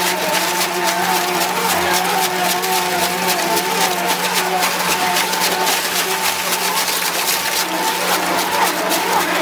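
Twin-shaft shredder running loaded with car tyres, its rotating cutter discs gripping and tumbling the rubber. It makes a steady machine hum with a wavering whine over it, and constant rapid clicking and cracking.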